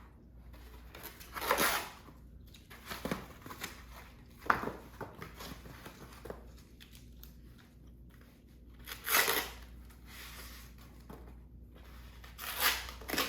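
Painter's tape being peeled and torn off foam padding on a bicycle, in several separate tearing pulls with rustling and handling noise between them.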